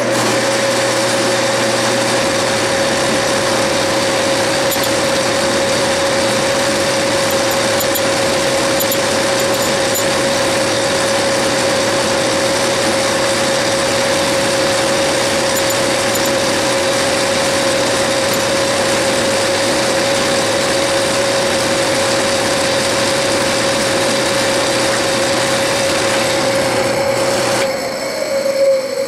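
Metal lathe running at a steady speed with a constant whine, spinning an aluminum bar in its chuck for light trial cuts. Near the end the lathe is switched off and the pitch falls as the chuck spins down.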